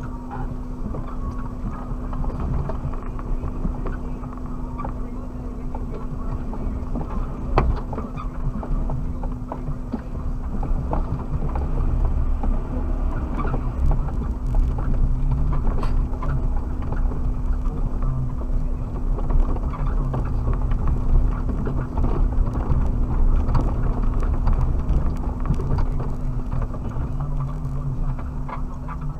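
Suzuki Jimny driving over rough off-road ground, heard from its dashcam inside the cabin: the engine runs with a steady low hum while frequent short knocks and rattles come from the body and suspension. It gets somewhat louder a little under halfway through.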